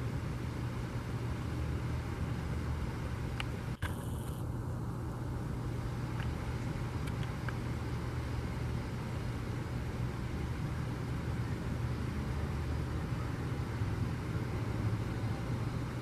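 Steady low rumble of distant road traffic, with a brief dropout just under four seconds in.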